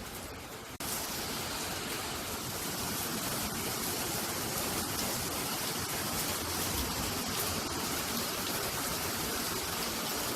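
Heavy rain pouring down, a steady hiss that comes in abruptly about a second in.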